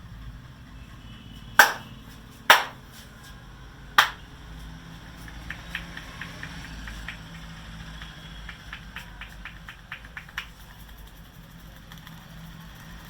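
Hand strikes of a head massage: three loud, sharp smacks about a second apart, then a run of lighter, quicker taps until about ten seconds in.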